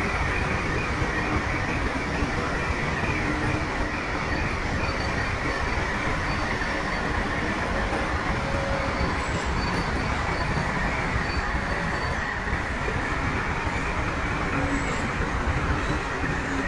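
Crawler bulldozer working: its diesel engine running steadily under load with the clatter of steel tracks, and faint high metallic squeals coming and going.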